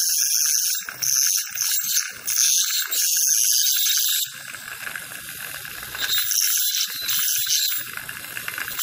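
Piezoelectric ultrasonic dental handpiece with a Perfect Margin tip running against a tooth's preparation margin: a loud, high hissing buzz. It weakens about four seconds in and picks up again about two seconds later.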